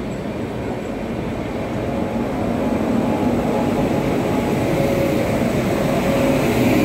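Wheels rumbling on rail as two trains run side by side at speed, heard from a moving train's open doorway. The rumble grows louder as the electric locomotive on the next track passes close alongside, and a faint steady whine joins in during the second half.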